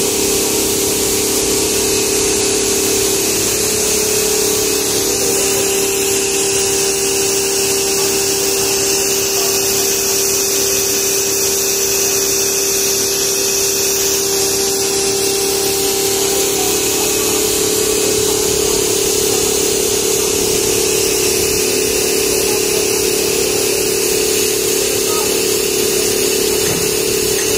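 Nylon zipper coil-forming machine running steadily, a continuous mechanical hum with one constant mid-pitched tone, as plastic monofilament is formed into zipper coil.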